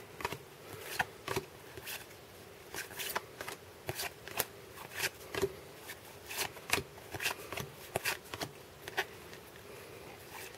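A stack of 1992 Upper Deck baseball cards being flipped through one at a time by hand: a string of short card-on-card slides and flicks, about two a second, in an irregular rhythm.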